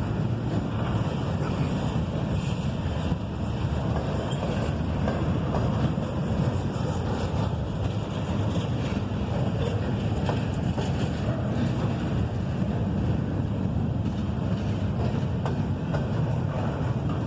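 CSX freight train's cars rolling past in a steady low rumble, with wind noise on the microphone.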